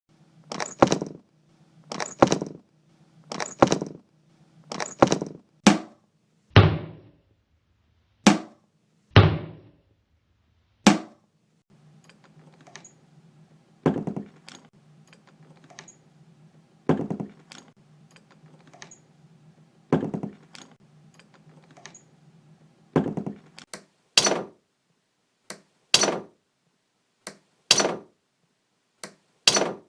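A run of separate door sounds, one after another with short gaps: latches and knobs clicking, and doors shutting with a thunk. Several double clicks open the sequence, a couple of deeper thuds come a few seconds later, and sharper single clicks follow over a faint hum.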